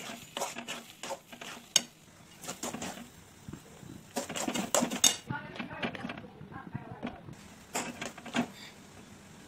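Metal spatula scraping and clinking against a metal kadhai as a thick khoya and semolina mixture is stirred and turned. There are repeated sharp clinks, with a busier run of scraping strokes about four to five seconds in.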